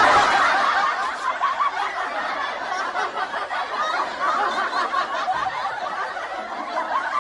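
Many people laughing at once, a dense laugh-track-style crowd laugh that is loudest at the start and slowly dies down.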